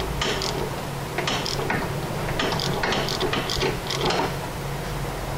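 Socket ratchet clicking in short, uneven bursts as it is worked slowly back and forth, backing a sway bar link nut off its stud while a Torx bit holds the stud from turning.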